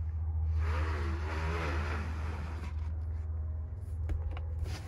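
Rear cargo cover of an estate car being handled: a sliding, rustling stretch in the first couple of seconds, then a few clicks and knocks near the end, over a steady low rumble.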